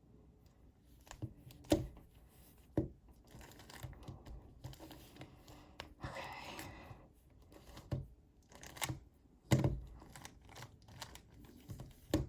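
Rubik's cube being turned slowly and awkwardly: irregular plastic clicks and scraping of the layers, with a few sharper knocks.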